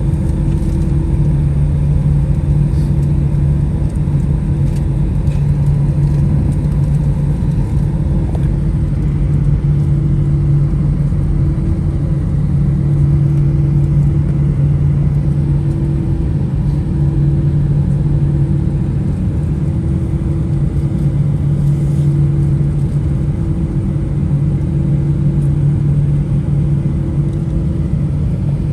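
Airbus A320 cabin noise on the ground with the engines at idle: a loud, steady low drone, with a low hum that swells and fades every few seconds.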